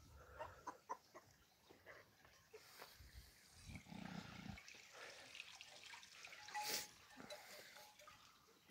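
Faint livestock sounds: a low animal call about four seconds in, among scattered small knocks and rustles, with one brief sharp noise near seven seconds.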